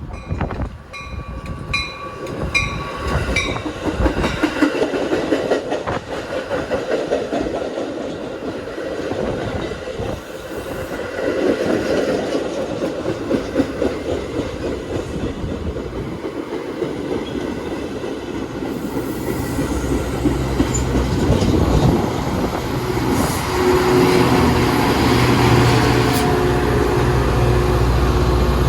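Metra commuter train passing: its railcars' wheels clatter over the rail joints. A ringing that repeats about twice a second sounds in the first few seconds, and a deep steady rumble builds in the last third, the loudest part.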